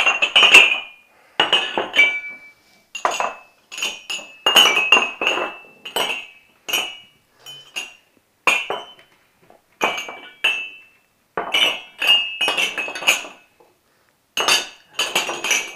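Ceramic coffee mugs being shuffled by hand, clinking against one another and knocking on wooden floorboards in irregular clusters of sharp, ringing clinks, with a couple of short pauses.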